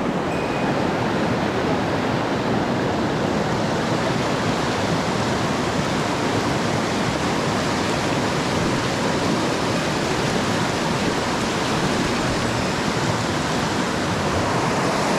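Rushing mountain-stream water, a steady, even rush.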